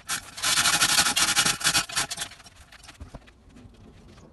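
Chain hoist being worked to lift a truck engine, its chain rattling and clicking rapidly for about two seconds before dying away.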